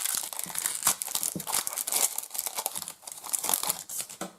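Crinkling and tearing of a trading-card pack's wrapper as it is opened and handled, a dense crackle of many quick sharp crackles that fades near the end.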